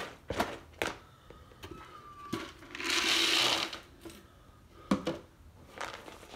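A metal utensil knocking and scraping in a plastic bowl as cat food is mashed. About two and a half seconds in comes a rush of dry cat food poured from a plastic canister, lasting about a second and a half, followed by a few more knocks.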